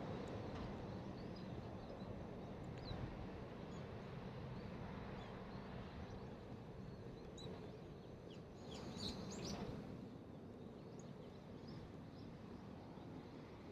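Small songbirds chirping now and then, with a short cluster of quick high chirps about nine seconds in, over a steady low outdoor background hum.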